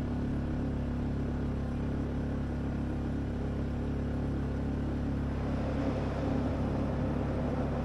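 A boat's motor running steadily at constant speed, a low even hum, with a brief swell of rushing noise a little over five seconds in.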